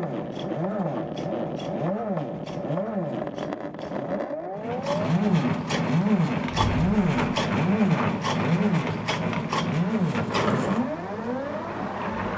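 Motors of a large painting machine running in repeated strokes, a whine that rises and falls in pitch about one and a half times a second, with scattered ticks. It gets louder about five seconds in.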